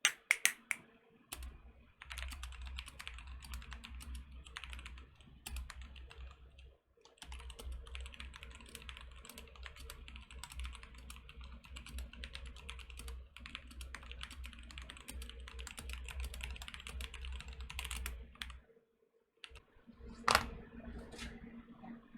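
Fast typing on a Techware Phantom TKL mechanical keyboard with unlubed Akko CS Silver linear switches: a dense, continuous clatter of keystrokes with a short break about seven seconds in. The typing stops a few seconds before the end, and a single loud keystroke follows.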